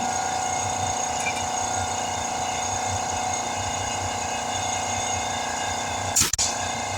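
Portable air compressor running with a steady drone. About six seconds in there is one brief, loud burst of noise.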